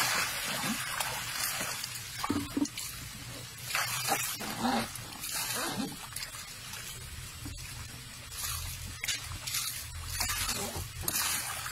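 Baby elephant splashing and sloshing water in a round tub, with water poured in from a bucket at the start. Several short pitched animal calls rise and fall over the splashing.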